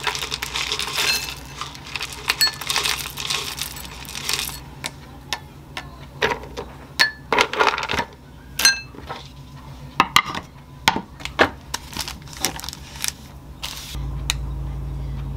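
Granola poured from a glass jar into a glass bowl of yogurt, a dense rattle for about four seconds, then almonds dropped one by one into a glass bowl, each landing with a sharp ringing clink. Near the end a steady low hum sounds for about two seconds.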